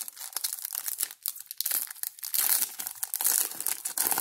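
Foil wrapper of a Panini Contenders football card pack crinkling in the hands and being torn open: a dense run of rapid crackles, loudest in the second half.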